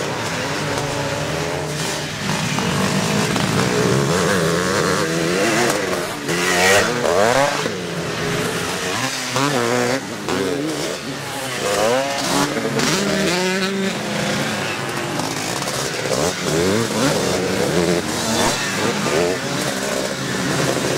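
Several vintage twinshock motocross bikes racing, their engines overlapping and revving up and down in pitch as they work through a bend.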